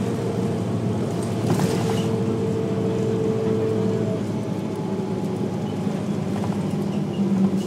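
Novabus Classic transit bus's diesel engine running under way, heard from inside the passenger cabin as a steady drone. Over it sits a higher whine that drops out about half a second in and comes back a second later, and there is a short hiss about one and a half seconds in.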